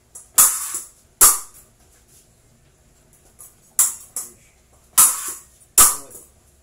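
Épée blades clashing and striking in fencing drills: about six sharp metallic clicks and clanks, coming in rough pairs, two of them with a low thud from a lunging foot hitting the floor.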